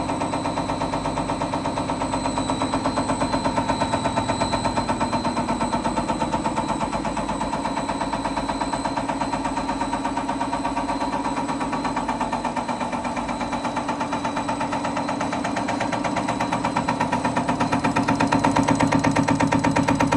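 ZQYM 6320H EUI/EUP injector test bench running a test, its motor-driven cam box working a diesel unit injector in a rapid, steady clatter over a steady high whine. It grows louder a few seconds before the end.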